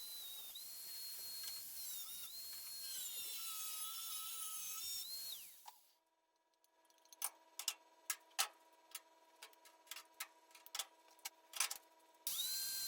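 High-speed power cutting tool whining as it cuts the steel patch piece, its pitch dipping and recovering under load, until it stops about five seconds in. A quiet stretch of a dozen or so sharp metal clicks and taps follows, and the whine starts again suddenly near the end.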